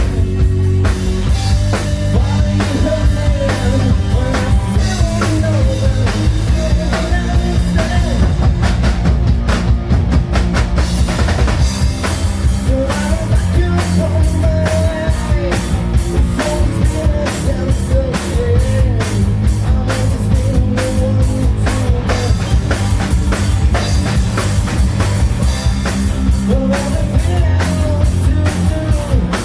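Live melodic hard rock band playing loud: pounding drum kit, heavy bass and electric guitars, with a sung vocal line coming in and out in stretches.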